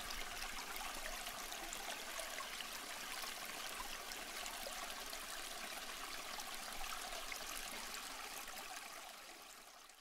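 Steady running, trickling water that fades out in the last second.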